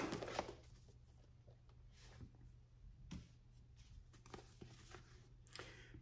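Near silence with a few faint, brief rustles and taps of paperback books being handled: one set down and the next picked up.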